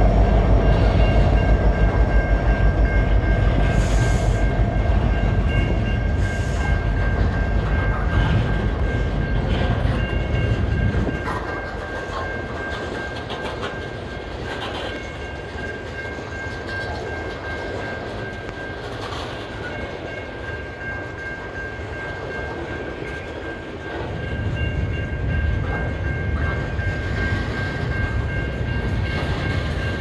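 Freight train of coil-steel cars rolling past a grade crossing, the cars clattering over the rail joints, with the diesel locomotives' low rumble fading away over the first seconds. The train noise drops about a third of the way in and builds again near the end, while a steady high ringing, the crossing bell, sounds throughout.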